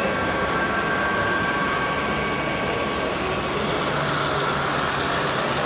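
HO scale model freight cars rolling past on the layout track: a steady rushing clatter of wheels on rail, with faint steady tones over it in the first half.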